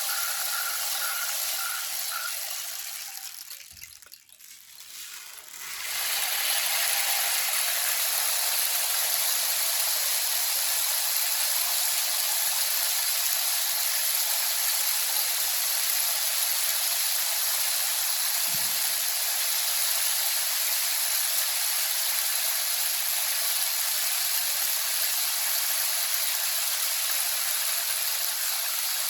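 Rainstick pouring: a steady hiss of pellets trickling down inside the stick. It fades away about four seconds in as the stick is turned over, then starts again and runs on evenly.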